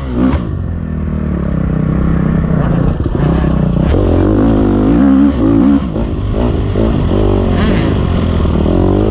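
2012 KTM 250 XC-F dirt bike's single-cylinder four-stroke engine being ridden, its pitch rising and falling repeatedly with the throttle.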